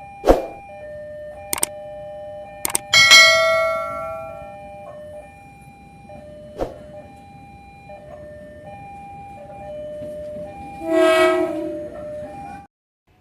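Railway level-crossing alarm ringing steadily in an alternating two-tone pattern. A train horn sounds over it about three seconds in and again near the end. A few sharp clicks are heard, and the sound cuts off suddenly just before the end.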